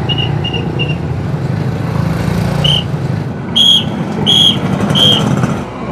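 A pea-type traffic police whistle blown in a series of short blasts: three quick chirps at first, then single blasts, with the three loudest coming in the second half. A low, steady rumble of motor traffic runs underneath.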